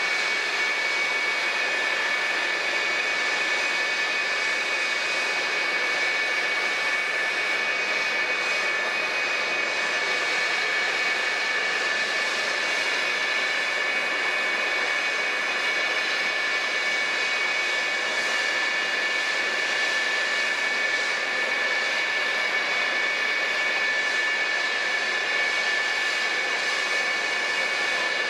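F-4EJ Phantom II's twin J79 turbojet engines idling: a steady high whine over a rushing hiss that stays unchanged throughout.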